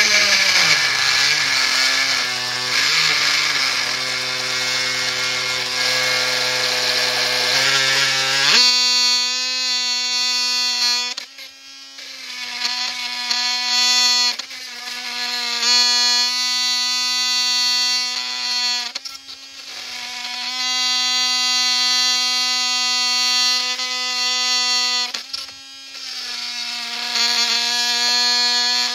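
Craftsman V20 cordless oscillating multi-tool run at a lowered speed, its wood-and-metal blade cutting through steel nails driven into a board: a loud buzzing whine. For the first eight seconds or so the pitch is lower and rougher, then it settles into a higher, steadier buzz broken by several short dips.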